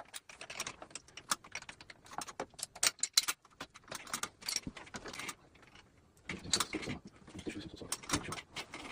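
Irregular clicking, tapping and light metallic rattling, like hand tools and fittings being handled, with a short lull a little past the middle.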